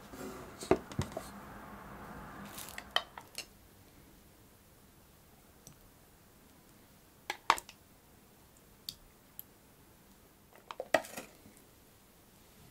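A round metal cake tin is set down on a wooden table with two low knocks about a second in. Then come scattered sharp clicks and clinks of bowls and utensils, with a bigger cluster around the middle and another near the end, while a thick white mixture is poured into a glass mixing bowl on a kitchen scale.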